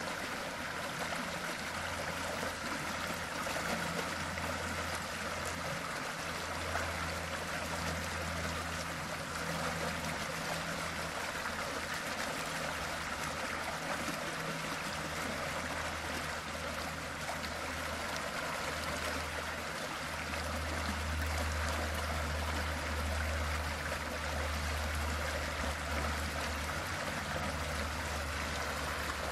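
Water pouring out of a culvert drain pipe into a creek, splashing and rushing steadily, with a low rumble underneath that swells and eases.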